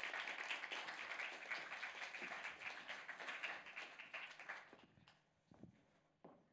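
Audience applauding, dying away about five seconds in, then a couple of light knocks.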